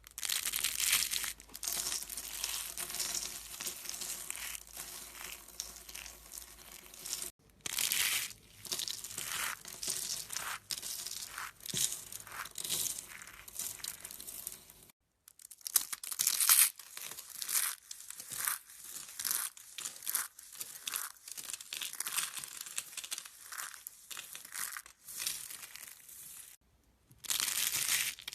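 Crinkling and crackling of something being squeezed and crushed by hand. The crackles come in dense runs broken by a few short pauses.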